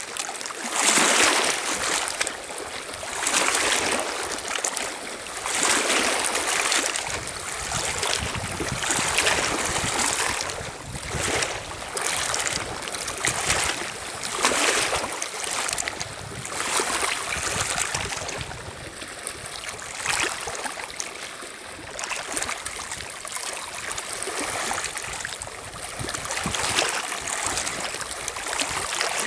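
Small lake waves lapping and washing over a pebble shore and around half-sunk cardboard boxes, in irregular swells every second or two.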